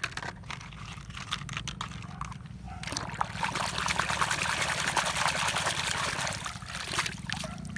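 Water pouring and splashing, with scattered drips at first and a heavier pour from about three seconds in until shortly before the end, over a low steady hum.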